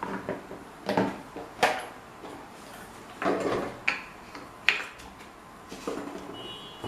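Irregular knocks, clicks and short scrapes of old table-fan parts and tools being handled, with about a dozen sharp strikes spaced unevenly.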